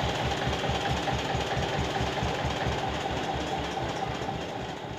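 Tractor engine running with an even low throb, belt-driving a flywheel chaff cutter that whirs along with it. The sound slowly gets quieter toward the end.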